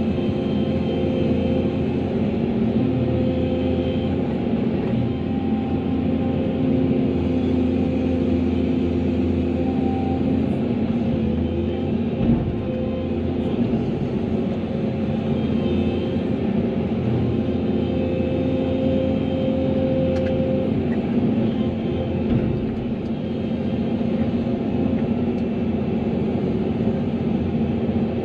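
Volvo excavator's diesel engine running steadily as the boom and bucket move, with steady humming tones that swell and fade.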